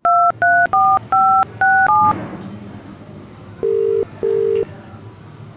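Telephone call being placed: six quick touch-tone (DTMF) keypad beeps as a number is dialled, then, after a short pause, one low double ring of the ringback tone as the call rings through.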